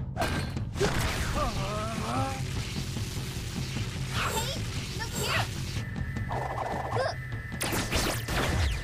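Action music with a steady low beat under cartoon fight sound effects: several sudden crashes and whooshes and zapping energy-blast shots.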